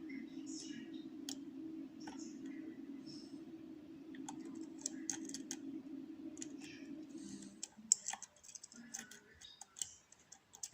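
Lock pick clicking and scraping against the pin stacks of a Eurospec MP5 euro cylinder lock: small, irregular clicks that come thickest in the second half. Under them a steady low hum runs and cuts off about three-quarters of the way through.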